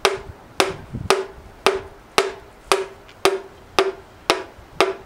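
Butt of a wooden hammer handle tapping a piston down through a ring compressor into a cylinder of a GM 3800 V6 block. About ten even, light taps, roughly two a second, each with a brief ringing note.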